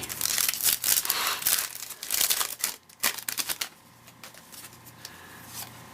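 Crinkly plastic wrapper of a trading-card pack rustling and tearing open with rapid crackling, dying down to a few faint clicks and rustles about halfway through.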